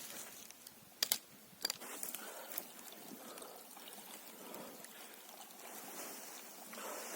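A few sharp clicks in the first two seconds, then liquid trickling and pouring unevenly.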